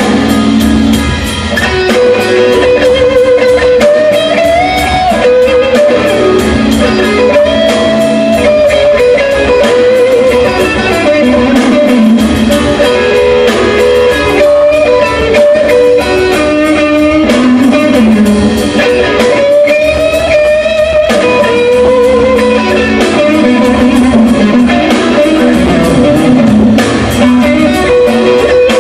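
Live rock band playing loud, with electric guitars to the fore, heard from the audience in a concert hall.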